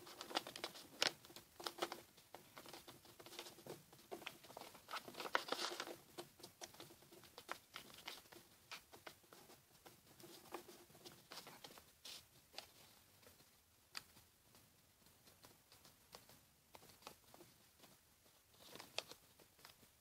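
A sheet of paper being folded and creased by hand: crisp crinkling and rustling with many small sharp crackles, busiest over the first six seconds, thinning out, then a short flurry near the end.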